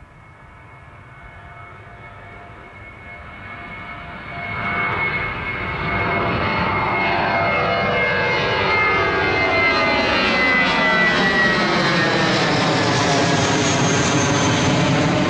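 Airbus A320's twin turbofan engines at takeoff power as the jet climbs out and passes overhead. The engine noise grows steadily louder, jumping up about four or five seconds in and then staying loud. A high fan whine slides down in pitch as the jet goes over.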